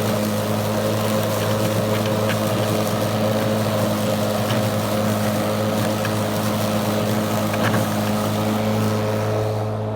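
Kobalt 80-volt brushless battery lawnmower running steadily while cutting tall grass: an even electric motor-and-blade hum under a hiss, with a few faint ticks. The hiss fades just before the end.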